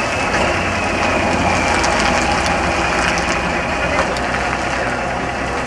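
Diesel engine of a classic Pegaso Cabezón truck running steadily, a continuous low rumble with a few light clicks and rattles about midway.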